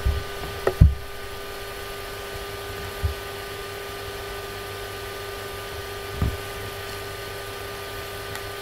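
Steady low background hum with a few faint steady tones, broken by four soft low thumps.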